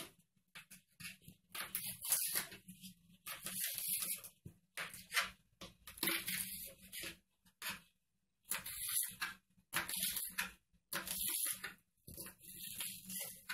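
Kitchen knife cutting a raw carrot into strips on a plastic cutting board: a run of irregular cutting strokes, each a short scrape ending in a tap on the board, with a brief pause about eight seconds in.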